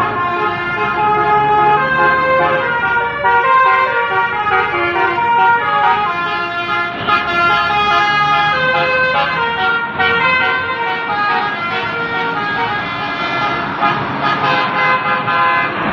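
Basuri telolet horns, the multi-tone musical horns fitted to Indonesian buses and cars, playing quick runs of notes that step up and down in pitch. Several horns sound at once, overlapping and answering one another.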